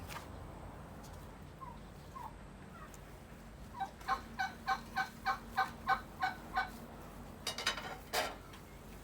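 A farmyard bird calling: a run of about ten quick, evenly spaced calls, roughly three a second, followed near the end by a couple of short rough bursts.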